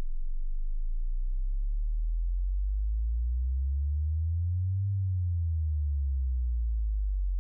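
Deep, pure electronic bass tones holding steady and overlapping, with higher notes joining one after another to a peak about two-thirds of the way in, then dropping out again near the end.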